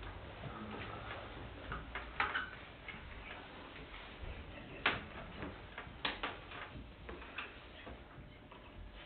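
Quiet room tone with scattered light clicks and taps, irregular rather than a steady rhythm, and sharper ones about two, five and six seconds in.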